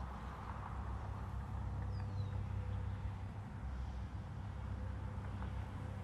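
Steady low outdoor rumble on a shoreline, with one short high falling call about two seconds in.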